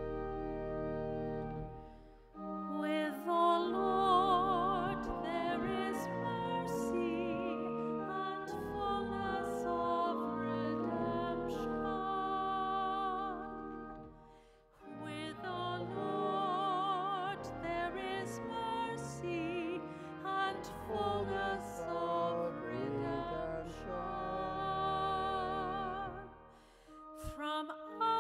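A woman cantor sings the responsorial psalm solo with a wavering vibrato over sustained organ chords. The organ plays alone for about the first two seconds. The singing breaks off briefly about halfway through and again near the end.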